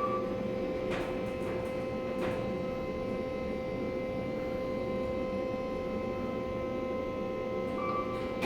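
Kone elevator car with a steady hum of several fixed tones over a low rumble. A short high tone sounds at the start and again near the end, with a couple of faint clicks in between.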